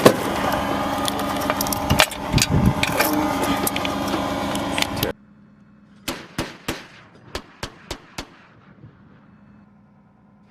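For about the first half, a vehicle engine runs loudly with clanking and rattling. The sound then cuts to an M242 Bushmaster 25 mm chain gun firing two short bursts, three rounds then four, each shot sharp with an echoing tail.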